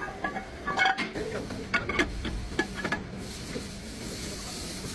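Metal tools and brake parts clinking and tapping, then, about three seconds in, a steady hiss of spray starting up.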